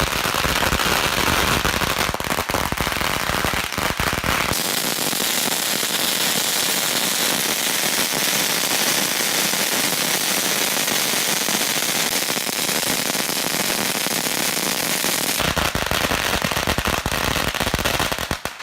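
Many fireworks and firecrackers going off at once in a dense, unbroken crackling barrage. The deep booms drop out for about ten seconds in the middle and come back near the end.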